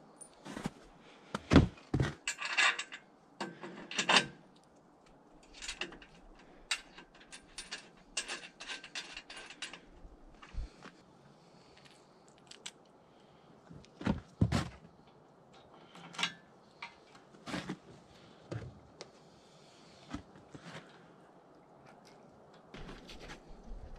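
Small steel hardware (bolts, nuts and washers) clinking and rattling as it is handled and set down on a plywood workbench. Scattered clicks and light metallic rings with a few louder knocks, busiest in the first ten seconds.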